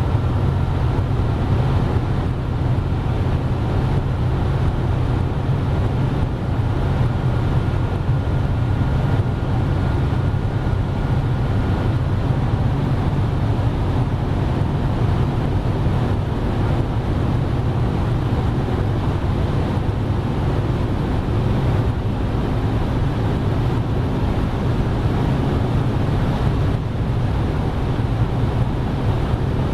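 Car cruising at a steady speed: a constant low drone of engine and road noise with wind rushing over the microphone, no revving or gear changes.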